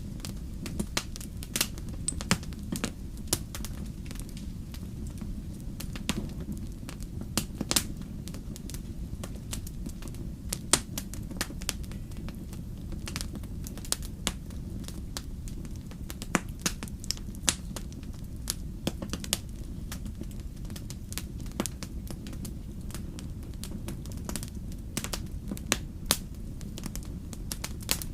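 Fire in a fireplace crackling, with many sharp, irregular pops over a steady low rumble.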